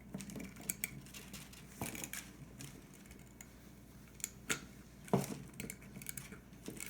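Pliers clicking and tapping against a small circuit board and plastic housing in short, irregular clicks while the Raspberry Pi camera board is worked onto its mounting posts.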